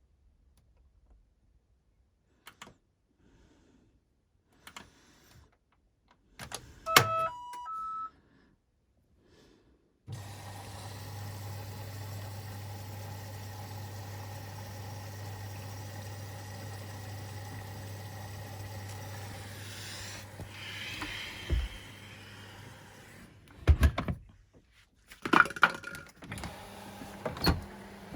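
Washing machine's control panel beeping a short four-note signal. About three seconds later a steady hum with a hiss starts as the machine begins running, with a few sharp clicks and thumps near the end.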